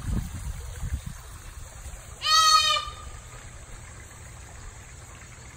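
Deer fawn giving one short, high bleat about two seconds in, over low rumbling on the microphone in the first second.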